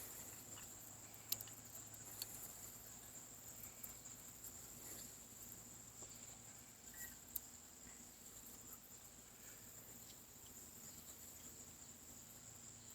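Near silence: a faint steady high-pitched insect trill, with a few faint clicks of climbing gear being handled, the clearest about a second in and again past the middle.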